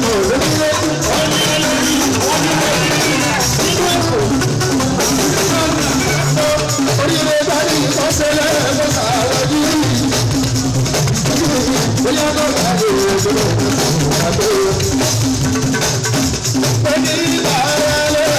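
Live Fuji music played loud and steady through a PA: a man singing into a microphone over drums and a shaken rattle.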